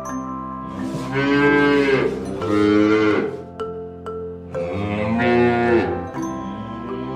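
Cattle mooing: three long moos, about a second each, one after another.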